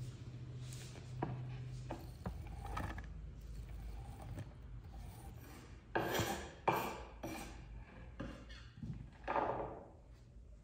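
Scraping and rubbing on a wooden cutting board, with a few light knocks early on and three louder scrapes in the second half, as food is handled after chopping.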